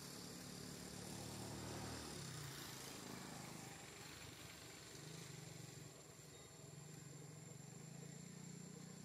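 Faint, steady low hum of a running engine.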